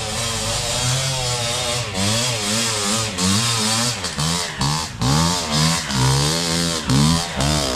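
Dirt bike engine revving up and down as it is ridden up a rough, steep trail, the throttle opened and eased again and again, faster in the second half.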